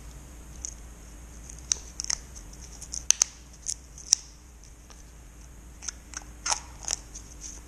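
Thin protective plastic film crackling as it is peeled off a small offcut of lacquered melamine panel: scattered sharp crinkles and clicks, the loudest about three and four seconds in.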